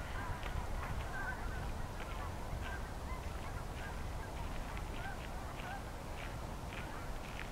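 Waterfowl calling: many short, brief calls scattered and overlapping, over a steady low rumble.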